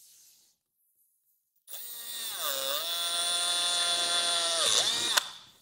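Cordless drill pre-drilling a pilot hole through a cutting template into a motorcycle saddlebag lid, starting about a second and a half in. Its whine runs for about three and a half seconds, drops in pitch as the bit bites, recovers, dips again near the end and stops with a click.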